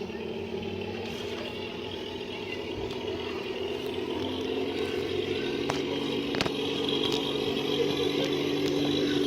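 Electric motor and gear drive of a radio-controlled crawler truck whining steadily and growing louder, its pitch stepping up slightly about halfway through, with a couple of sharp clicks.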